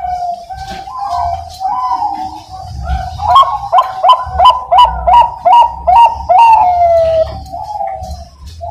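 Zebra dove (Bangkok-type perkutut) singing: a loud run of quick, clipped coos, about three a second, ending in a long falling coo.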